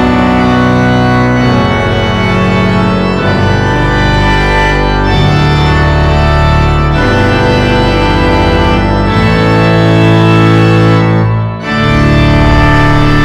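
Church organ playing slow, sustained chords that change every second or two, with a brief break between chords about eleven and a half seconds in.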